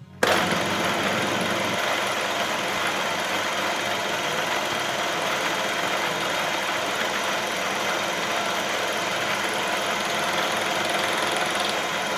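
Milling machine running, its fly cutter taking an interrupted cut into an aluminium gear blank on a mandrel to form the teeth; a steady, dense machining noise that starts abruptly just after the beginning.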